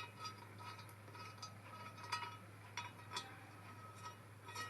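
Light metallic clicks and ticks, a few sharper ones spread through, as a steel bolt is worked by hand into a threaded bolt hole in an exhaust manifold to test the thread's fit.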